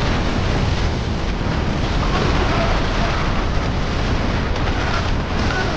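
A steady, dense rushing noise, with a few faint short wavering cries near the end.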